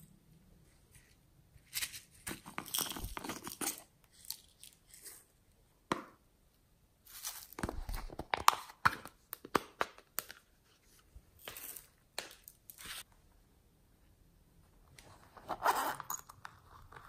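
Hands handling small plastic containers and packaging: clicks, crinkles and crackles in several short bursts. Near the end comes a denser rasping burst of about a second, fitting a zipper being pulled on a small pouch.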